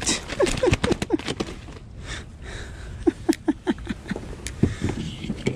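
A freshly landed tautog (blackfish) being handled in a plastic kayak, with sharp knocks and slaps as it flops against the hull and rain gear. Two short runs of breathy, excited laughter or panting, about five beats a second, come near the start and again about three seconds in.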